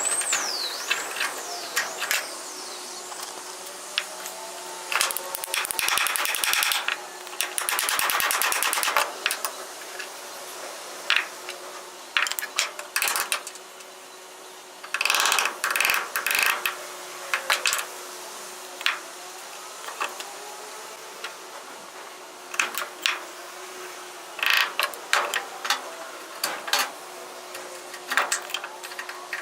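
Scattered sharp knocks and clicks of hand work on a hammer, with two bursts of very fast rattling strokes, one lasting several seconds.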